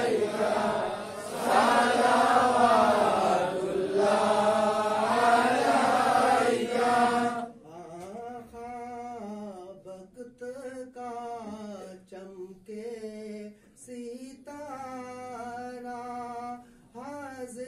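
Men's voices chanting an Islamic devotional song for the Prophet's birthday (Milad), loud and with wavering pitch. About seven seconds in, the loud chanting drops away and a single quieter voice carries on singing the melody.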